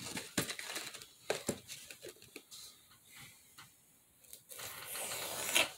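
Styrofoam plates being handled on a workbench: scattered light taps and clicks, then a longer scratchy scraping on the foam near the end.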